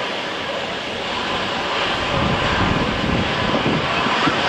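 Jet engines of an Embraer E-Jet airliner on final approach, a steady rushing noise that grows slightly louder as the plane closes in. Wind and rain on an umbrella over the microphone are mixed in.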